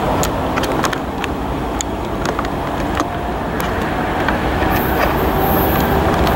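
Tri-Rail commuter train rolling into the station: a steady low engine rumble with irregular sharp clicks from the wheels on the track, and a high hiss that starts about five seconds in.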